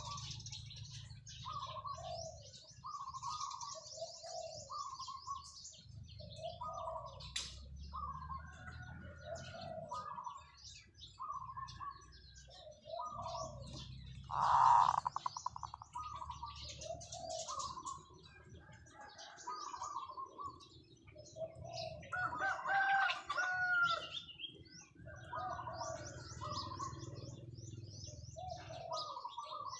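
Zebra dove cooing a long run of short, evenly repeated notes, with small birds chirping higher in the background.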